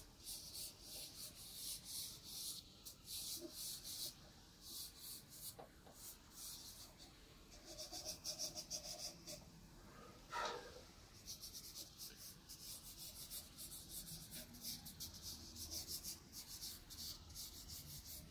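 A hand rubbing soft pastel into paper to blend it: runs of quick, dry, scratchy strokes in bursts with short pauses. A brief falling sound comes about ten seconds in.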